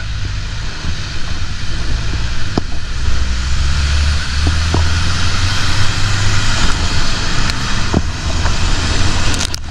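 Off-road jeep's engine running steadily under load while it drives through shallow muddy water, over a constant rush of splashing water, with a few light knocks.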